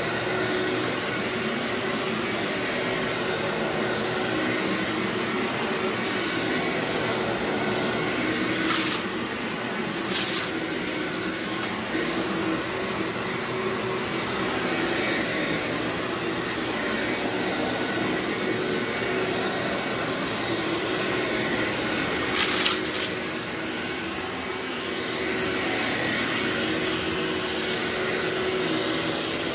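Upright vacuum cleaner running steadily over carpet, a constant motor hum broken by three short, sharp rattles: two close together about a third of the way in and one about three-quarters of the way in.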